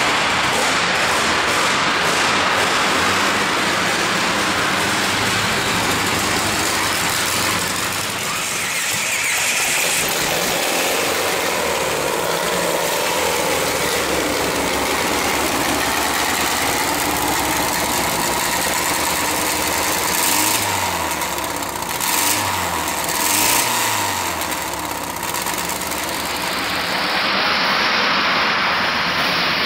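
1927 Ford Model T rat rod's engine running through open exhaust headers as the car drives slowly, with a few quick revs about two-thirds of the way through.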